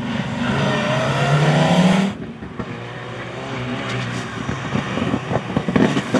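Rally car engines on a stage. One car accelerates hard with a rising engine note, and the sound cuts off abruptly about two seconds in. A second car, an Alpine A110 rally car, then approaches through a bend, its engine growing louder as it nears.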